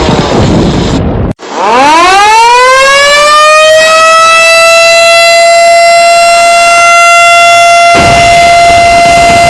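Loud wailing siren of the kind sounded for Indonesia's Independence Day commemoration. Its pitch falls, cuts out briefly about a second in, then winds back up and holds one steady high tone.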